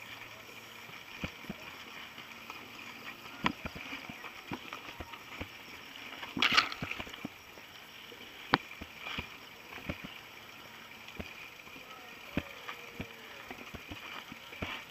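Mountain bikes being pushed by hand up a steep dirt trail: scattered clicks, knocks and rattles from the bikes and footsteps on the dirt, over a steady faint high hiss, with one brief louder burst of noise about six and a half seconds in.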